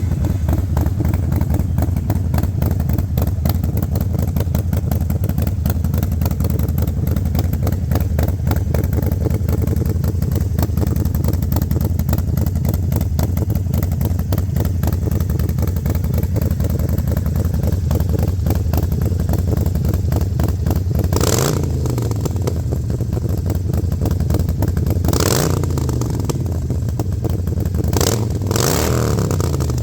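Harley-Davidson Forty-Eight's 1200 cc air-cooled V-twin, breathing through a Vance & Hines Grenades full exhaust, idling steadily. In the last third it is blipped four times, each rev rising and dropping straight back to idle, with the last two close together.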